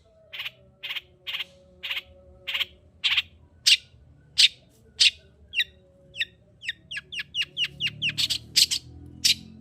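Long-tailed shrike (cendet) singing: harsh, rasping calls repeated about twice a second, then a faster run of short, falling notes from about halfway, with the harsh calls returning louder near the end.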